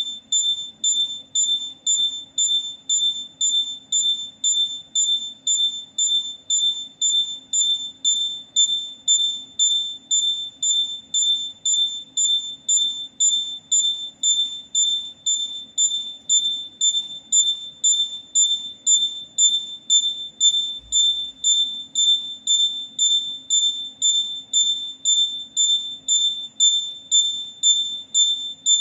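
A buzzer beeping: a shrill high-pitched tone pulsing evenly about twice a second, each beep starting sharply and fading quickly, over a faint steady low hum.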